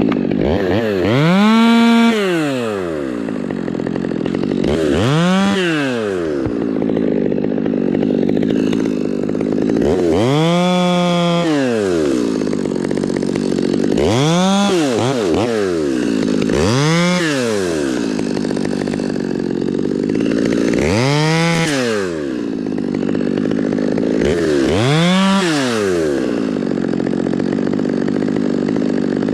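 Chainsaw running, idling between about seven revs up and back down, a few seconds apart.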